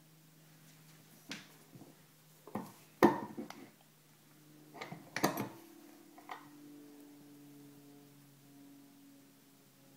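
Hand-operated table-top snap press setting a metal grommet through fabric: sharp metal knocks and clacks from the ram and die, the loudest about three seconds in and another cluster about five seconds in, with lighter clicks around them.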